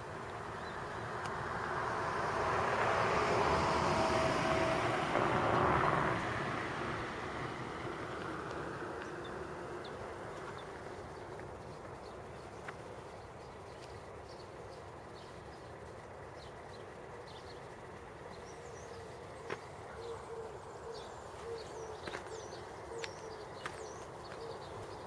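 A vehicle passes on the wet, snowy road, its tyre noise swelling and fading over the first several seconds. Later a dove coos repeatedly, with small birds chirping and a few sharp clicks.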